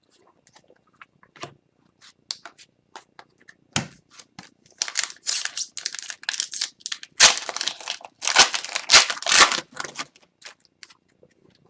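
Foil hockey card pack wrapper crinkling and tearing, with cards handled and shuffled: light scattered clicks at first, then a stretch of dense rustling and crumpling with a few soft knocks.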